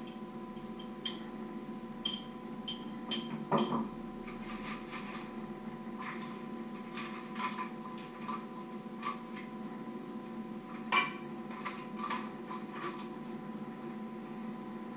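Small clicks and knocks of utensils and dishes handled on a kitchen counter, scattered irregularly, with two louder knocks, one a few seconds in and one about two-thirds of the way through, over a steady electrical hum.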